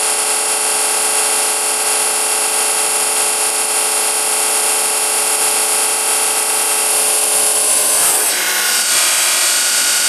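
Vacuum cleaner motor running steadily: a constant whine with many overtones over a strong airy hiss. The tone shifts about eight seconds in.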